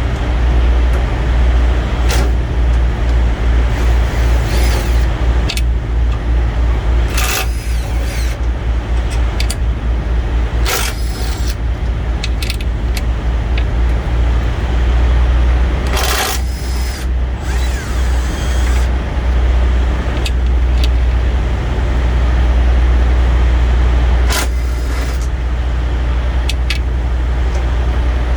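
Steady low rumble of an idling vehicle engine, with scattered clicks and clatter from handling tools and parts.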